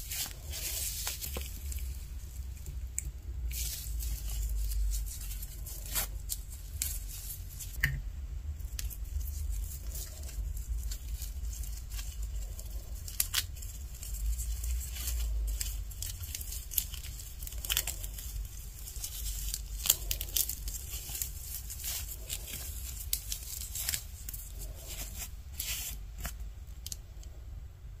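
Hands handling small doll dresses and toy plastic hangers: fabric rustling, with many light plastic clicks as the hangers are fitted and hooked onto a toy clothes rack.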